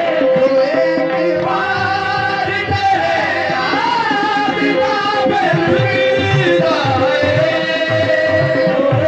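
Live qawwali: a harmonium holding a steady drone note under a lead singer's voice, with hand-drum strokes keeping the rhythm.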